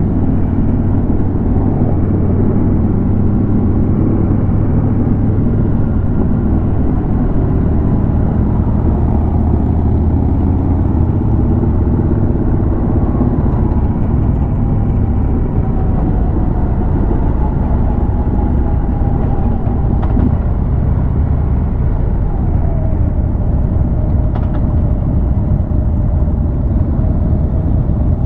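Harley-Davidson Road King's V-twin engine running at cruising speed, heard from the rider's seat. The engine note drops about three quarters of the way in.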